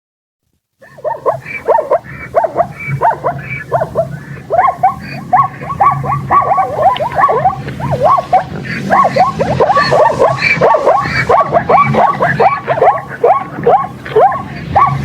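Zebra sound effect: a fast, continuous run of short barking, yelping calls, several a second, each falling in pitch, starting about a second in.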